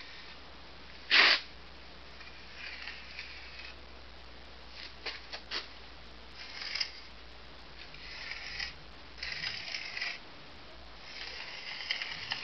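Tip of a small steel trowel scratching grooves into wet sand-cement mortar, in several short scraping strokes with pauses between them. A short, louder burst of noise comes about a second in, and a few light clicks about five seconds in.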